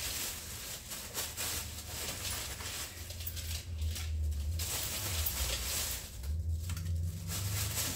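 Crinkling of a plastic bag of vegetables and pieces of onion dropping into a stock pot, an uneven rustle that comes and goes, over a low steady hum.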